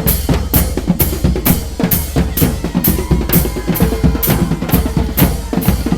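A street brass band's drum section playing a steady groove, with snare and bass drum hits about twice a second.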